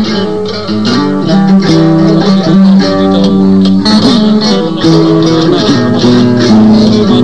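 Instrumental music led by plucked strings, guitar-like, playing a running melody of short notes over a steady accompaniment.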